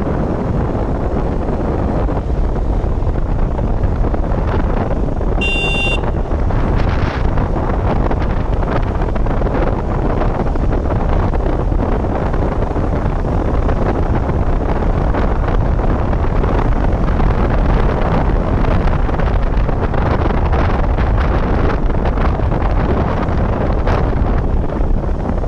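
Steady wind buffeting the microphone of a moving motorcycle, over the bike's engine running underneath.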